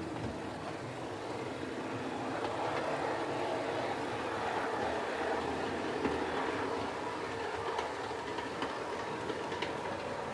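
OO gauge model train running on the track: a steady motor and wheel rumble that builds and then eases off as it passes, with a few faint clicks near the end.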